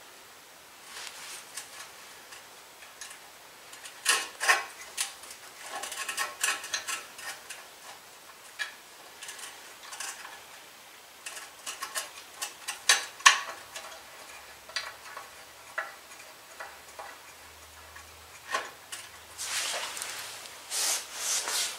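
Irregular small metal clicks and scrapes as exhaust bolts are handled and threaded by hand into a riding-mower engine, with a sharper click about thirteen seconds in and a longer rustle near the end.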